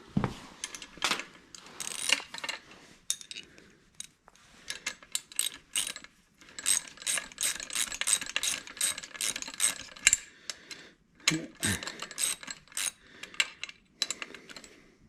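Hand socket ratchet clicking in quick back-and-forth strokes as a 7/16 nut is run down and tightened, with short pauses between runs of clicks.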